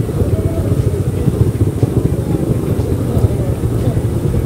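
Low, steady rumble of a motorcycle engine and surrounding motorbike and rickshaw traffic moving slowly in a congested street, with faint voices of people mixed in.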